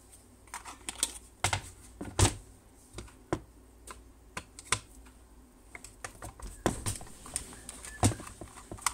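Irregular clicks and taps of a screwdriver working a small screw out of a Mercedes automatic gear selector assembly, with the metal and plastic parts of the assembly knocking as it is handled. A few sharper knocks stand out, about two seconds in and near the end.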